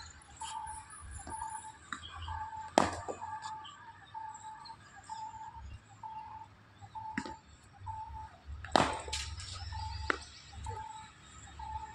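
Cricket bat striking a cricket ball: two sharp cracks, about three and nine seconds in, with fainter knocks near seven and ten seconds. Behind them a bird repeats a short, even note about twice a second.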